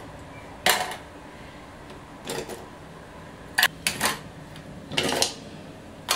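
Ice cubes clinking as they are picked up with metal tongs and dropped into drinking glasses: a series of short, sharp clinks about a second apart.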